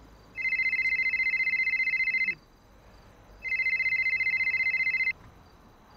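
Mobile phone ringing: two rings of about two seconds each, a high electronic tone with a fast flutter, a second or so apart.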